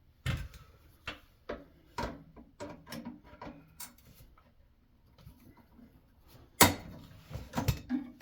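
Scattered clicks and knocks from tools and parts being handled during repair work on a refrigerator, with one loud knock about six and a half seconds in and a few more just after it.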